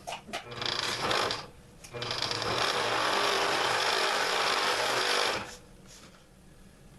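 Scroll saw running: a brief start-and-stop in the first second, then a steady run of about three seconds that cuts off suddenly.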